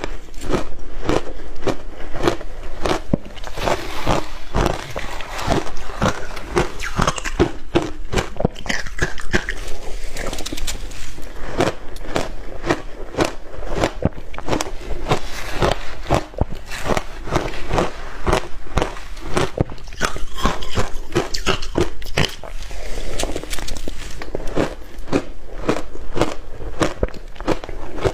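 Crushed ice being chewed close to a microphone: a dense, continuous run of sharp crunches, several a second.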